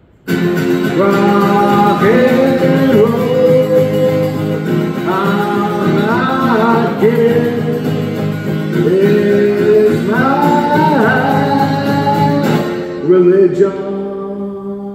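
Man singing to a strummed acoustic guitar. The strumming and singing start abruptly, then about thirteen seconds in two sharp final strums ring out and fade.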